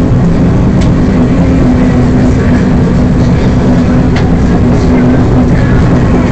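Sumitomo 300TL harvester's diesel engine running steadily, heard from inside the cab as a constant low hum.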